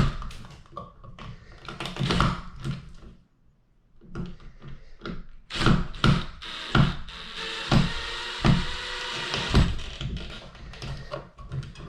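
Repeated knocks and thuds as an electrical box is pushed and tapped into its hole in the drywall, several of them in quick succession in the second half.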